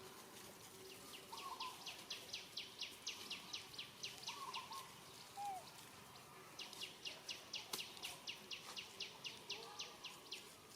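A wild animal's rapid high trill of short descending chirps, about five a second, in two bouts of several seconds each, with a few fainter, lower warbling calls between them.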